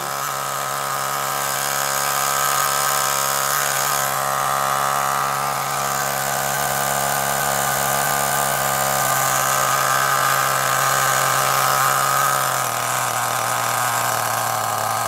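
Nitro RC car's small glow engine idling fast and steadily, its tickover screw set really high. The engine speed drops a little in steps about two-thirds of the way through and again near the end.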